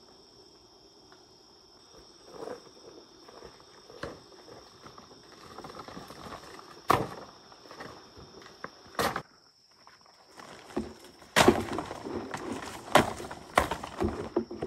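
Irregular footsteps and knocks, with sharp ones about seven and nine seconds in, then a busier, louder run of knocks and clatter over the last few seconds. A steady high-pitched whine runs underneath.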